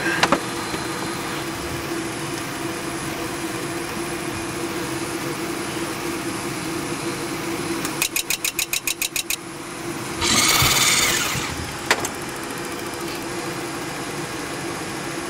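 Steady machine hum inside the cockpit of the prototype Boeing 737 with its APU running. About eight seconds in, a rapid run of about a dozen clicks, then a hiss of just over a second and a single sharp click.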